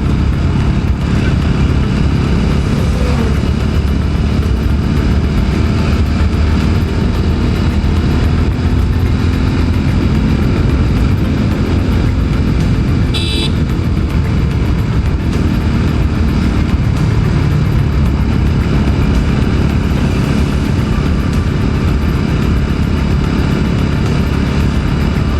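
TVS Apache RTR 200 4V's single-cylinder engine running steadily while the bike is ridden along a road, heard from on the bike with a heavy low rumble of engine and wind. A brief high-pitched tone sounds about halfway through.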